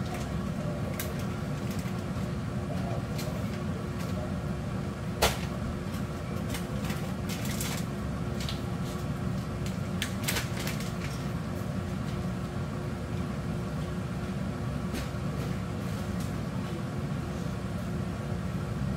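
A large uncovered pot of chicken soup simmering on a glass cooktop: a steady low rumble with scattered small pops and clicks, including one sharp click about five seconds in and a cluster of them a little later.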